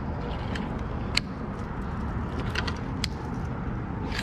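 A few sharp clicks from a fishing rod and baitcasting reel being handled, over a steady low rumble.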